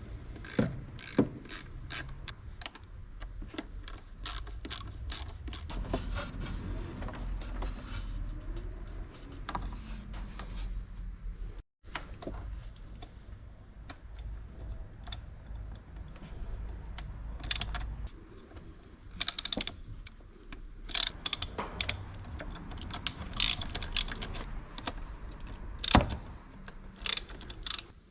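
Ratchet wrench clicking in irregular runs, with tools knocking on metal, as the throttle body's bolts are undone on an Audi 1.8T engine.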